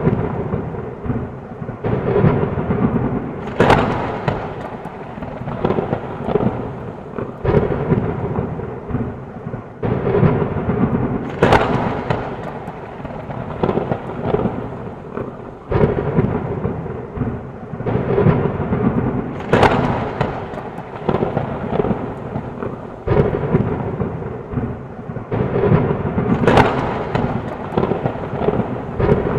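Heavy rain with rolling thunder throughout, broken by four sharp thunder cracks about every seven to eight seconds.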